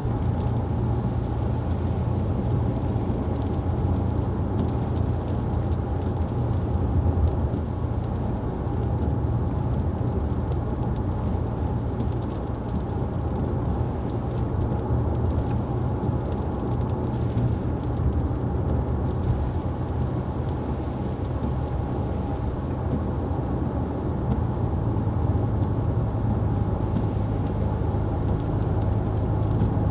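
Car driving along a road: a steady low rumble of engine and tyres that runs without a break.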